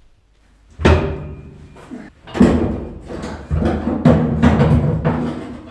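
Background music: loud percussive hits with held low notes, starting about a second in.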